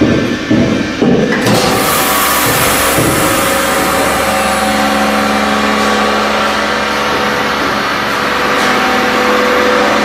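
Modified atmosphere tray-sealing machine running its sealing cycle. A few knocks come as the lid shuts, then about a second and a half in its vacuum pump starts and runs steadily, with a hiss and a steady hum that joins about halfway through.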